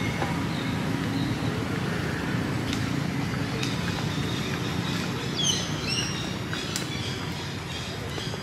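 Outdoor ambience: a steady low rumble throughout, with a few quick bird chirps about five and a half seconds in.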